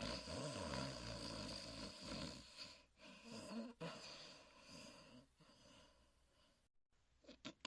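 A sleeping hound dog snoring: a long snoring breath with a low wavering pitch over the first few seconds, two shorter breaths a little after, then softer breathing that fades away toward the end.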